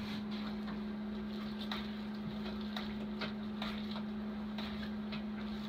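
A paddle stirring toasted coconut into hot wort in a stainless steel keg boil kettle, with a few light knocks against the kettle, over a steady low hum.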